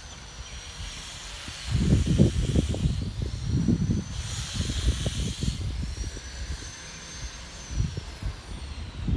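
Gusts of wind rumbling on the microphone, strongest from about two seconds in and again near the end, over faint high tones that slowly rise and fall and a short hiss about four seconds in.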